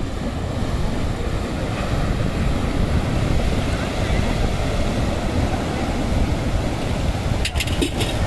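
Sea waves breaking and washing onto a rocky shore, with wind buffeting the microphone in a heavy low rumble. A few short sharp clicks near the end.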